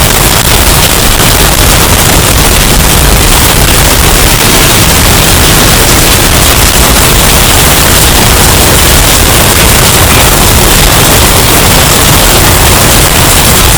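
Hurricane storm sound effect, bass-boosted and overdriven into distortion: a loud, steady, harsh rush of noise with heavy low rumble and no let-up.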